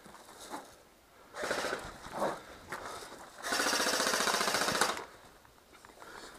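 Airsoft electric gun firing on full auto: a short burst about a second and a half in, then a louder, longer burst of rapid, evenly spaced shots lasting about a second and a half.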